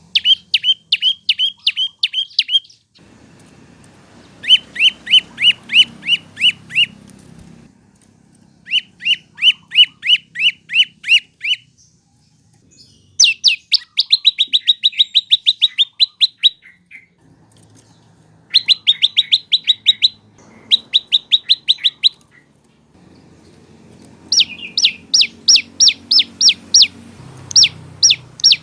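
Prenjak lumut (lancur) songbird singing in repeated phrases of quick, sharp down-slurred chirps, about three to five notes a second. There are seven phrases, each two to three seconds long, separated by short pauses.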